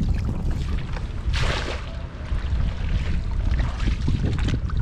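Water splashing and sloshing, with the loudest surge about a second and a half in, over a steady low rumble.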